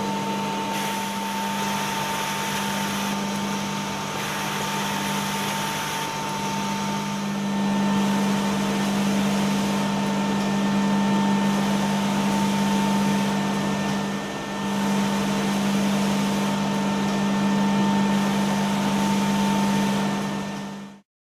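Biesse Stream B1 edge-banding machine running: a steady motor hum and whine over a constant rushing noise, which stops abruptly near the end.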